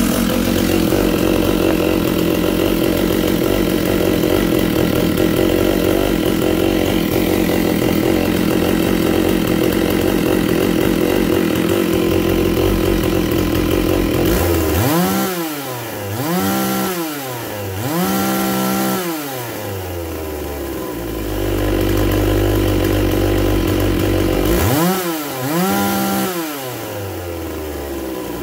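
Freshly rebuilt Stihl 064 two-stroke chainsaw engine running steadily, then revved up and let back down three times in quick succession about halfway through. It drops to a lower idle, is revved twice more near the end, and settles back to idle.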